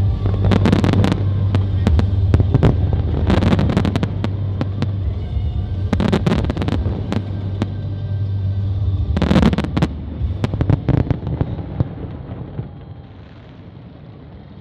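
Aerial fireworks going off in volleys of sharp bangs and crackles, roughly every three seconds, over a steady low hum. The bursts thin out and die away in the last few seconds.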